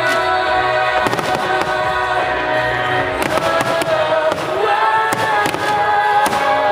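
Fireworks bursting at a fireworks display, several sharp bangs a second or two apart, over music with long held notes.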